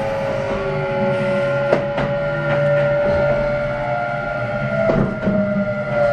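Kintetsu 9020 series electric train running, heard from inside the car: the Mitsubishi VVVF inverter and traction motors give a steady whine of a few tones that drift slightly in pitch over the rumble of the wheels, with a few sharp clicks from rail joints.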